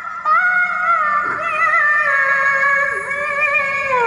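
A young woman's voice in melodic Quranic recitation (tilawah), sung in long held notes with wavering ornamental turns. A new phrase starts after a brief pause just after the beginning, and the melody steps down in pitch near the end.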